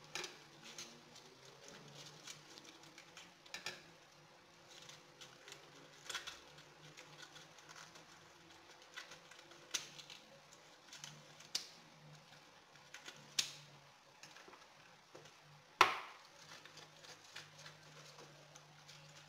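Hands working a globe artichoke: scattered light clicks and crackles as its tough leaves are bent open and pulled off, with one sharper snap about three-quarters of the way through.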